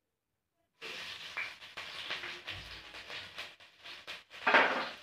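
Chopped green ingredient sizzling and crackling as it fries in hot oil in a pan. It starts about a second in, with a louder spitting burst near the end.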